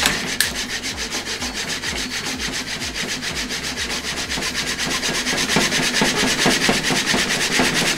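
Anet A8 3D printer's X-axis carriage shoved rapidly back and forth by hand: its linear bearings slide along the steel rods while the belt turns the back-driven stepper motor. The result is a fast, even rubbing rhythm of several strokes a second.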